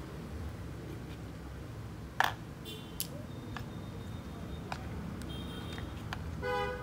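Hard plastic toy truck parts clicking and knocking as they are handled, with one sharp knock about two seconds in and a few lighter clicks after. Short high chirps come and go, and a louder pitched call sounds near the end.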